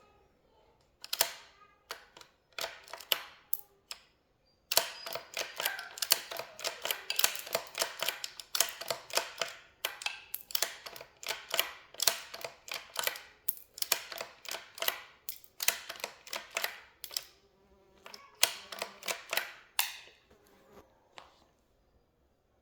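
Rapid, irregular sharp clicks and taps in clusters, with short pauses between them.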